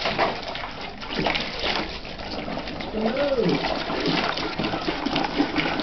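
Water splashing and sloshing in a bucket as a Newfoundland dog plays in it, with irregular splashes throughout. A short rising-and-falling call sounds about three seconds in.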